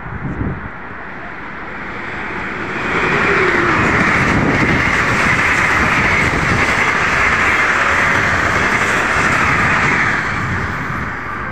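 Sapsan (Siemens Velaro RUS) high-speed electric train passing at speed. A loud rush of wheel and air noise builds about two and a half seconds in, holds steady for some eight seconds as the carriages go by, and falls away near the end.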